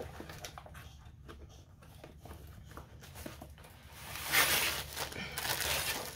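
Light taps and clicks of a packaging box being handled, then a loud rustle of the plastic wrapping around a rolled diamond-painting canvas starting about four seconds in, as the roll is pulled out and laid flat.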